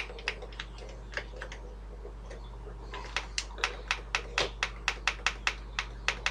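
Push buttons on the front panel of a Sony audio timer clicking as they are pressed to set the clock. A few scattered clicks come first, then a quick even run of about five clicks a second from about halfway through as the time is stepped up.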